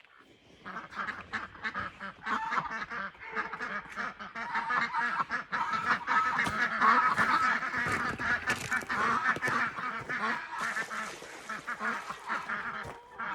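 A flock of domestic ducks quacking rapidly over one another in a continuous chorus, loudest around the middle and thinning toward the end.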